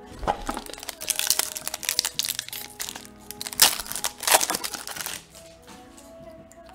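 Foil wrapper of a Commander Legends draft booster pack crinkling and crackling as it is handled and torn open, in loud bursts for about five seconds before dying away. Quiet background music plays underneath.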